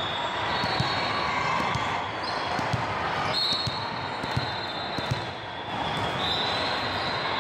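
A ball bouncing on an indoor court: a few scattered thuds over a steady background din.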